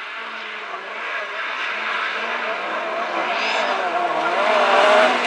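Several race car engines revving hard as a pack of cars races past, the wavering engine notes growing steadily louder as they come closer.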